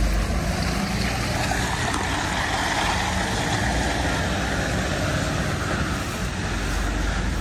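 Engine of a road-washing water truck running steadily, with a steady hiss of its water spray.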